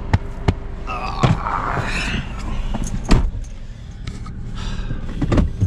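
A person climbing into a car: clothing rustling against the seat, several knocks and bumps, and a heavier thump about three seconds in that fits the car door shutting, over a steady low rumble.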